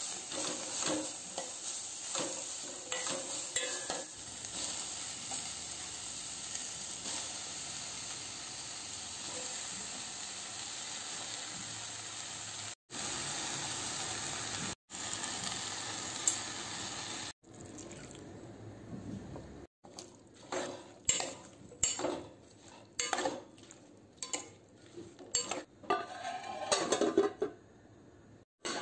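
Chopped onion, tomato and green chilli sizzling in oil in a stainless steel pot, with a spatula scraping and clicking against the pan. From about two-thirds of the way in the sizzle fades, and there are irregular knocks and clinks of stirring against the steel pot, ending with the steel lid being put on.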